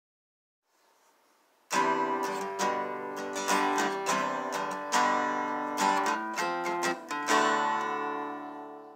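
Acoustic guitar intro music: plucked and strummed notes begin about two seconds in, then the last chord is left to ring and fade out near the end.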